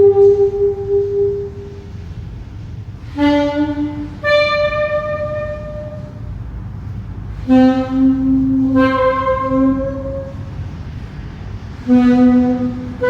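A wind instrument playing slow, improvised held notes, each starting with a breathy attack and separated by short pauses. Some phrases begin on a low note and then leap to a higher one. A low steady hum runs underneath.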